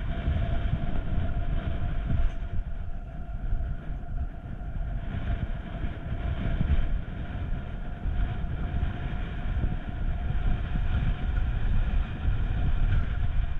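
Alpine coaster sled running fast down its steel tube track: a steady low rumble of the wheels on the rails, with a faint steady whine above it.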